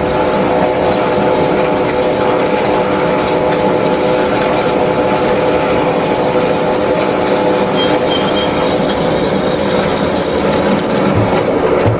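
Lathe running steadily while its tool turns a pulley, a constant machine whine made of several steady tones over a rough cutting noise.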